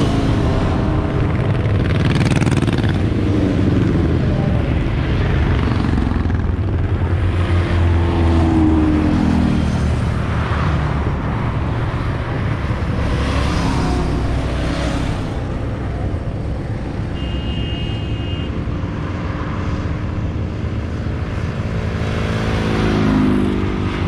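A stream of motorcycles passing by one after another on a road, their engines swelling and fading with the pitch dropping as each goes past, with a car passing among them.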